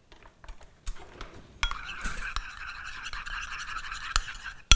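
Faint clicks of cutlery being picked from a drawer, then a utensil scraping steadily round a small ceramic bowl, stirring a thick mayonnaise sauce. A sharp knock near the end.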